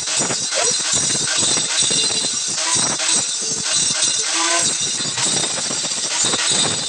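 Irregular crackling and hissing of stick (arc) welding on steel square tubing, steady throughout.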